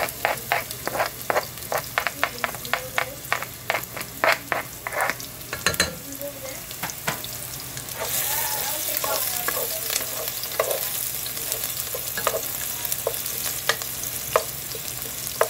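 Diced onions sizzling in hot olive oil in a nonstick pan, with quick taps and scrapes of a spoon pushing the onions off a cutting board for the first several seconds. From about eight seconds in the sizzle becomes louder and steady as a spatula stirs the onions, with occasional clicks against the pan.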